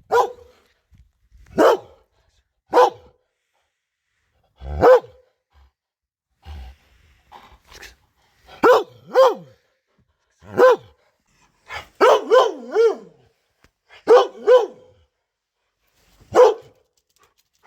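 A Beauceron barking loudly in single barks a second or two apart, some in quick pairs and one run of three, each bark dropping in pitch.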